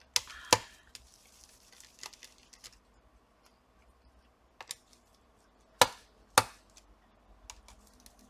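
Sharp clicks and taps of a screwdriver and small parts against a laptop's chassis while its cooling fan is being unscrewed. Two loud clicks come just after the start, another pair about six seconds in, with a few lighter ticks between and after.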